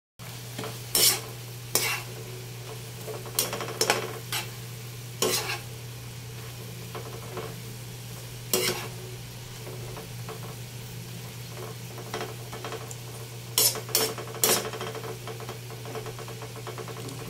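A spatula stirring and tossing water spinach in a non-stick wok, with irregular sharp scrapes and taps against the pan over a light sizzle. A steady low hum runs underneath.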